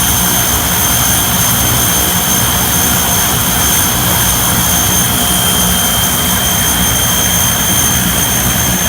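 Large engine running steadily at a constant speed: a loud rushing sound with several high whining tones held steady above it and a low pulsing underneath.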